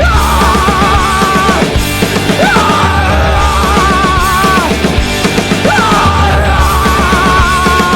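Loud rock music with a singer holding three long, wavering notes over a driving band and steady beat.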